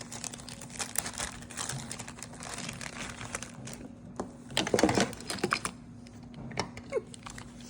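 Thin plastic packaging crinkling and clicking as it is handled and pulled open by hand, in irregular crackles with a louder flurry about five seconds in.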